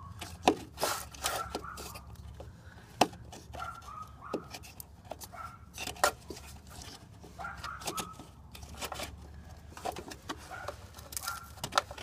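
A car's wiring harness being crammed by hand through a hole in the body panel: irregular knocks and clicks of wires and connectors against the metal, with handling rustle and a few sharper knocks.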